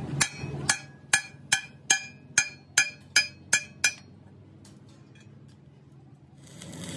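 Hammer blows on steel at a truck's front axle beam: about ten sharp, ringing metallic strikes at roughly two to three a second, stopping a little under four seconds in.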